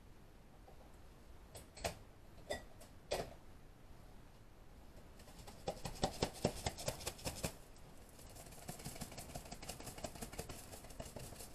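Small kitchen handling noises from containers and utensils: a few sharp clicks, then about two seconds of rapid ticking and rattling, then a softer, continuous rustle.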